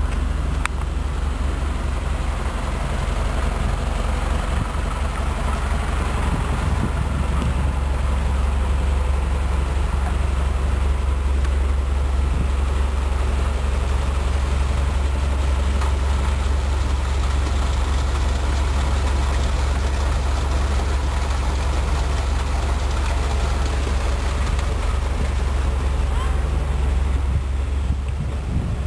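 Heavy engine idling steadily with a low rumble; it stops shortly before the end.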